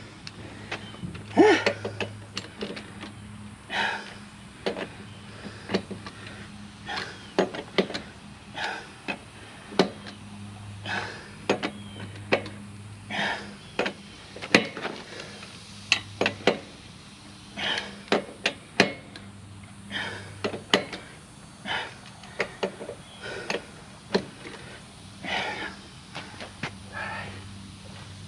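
A man breathing hard and out of breath, one heavy breath about every second. Sharp clicks and knocks come between the breaths, and a low hum comes and goes.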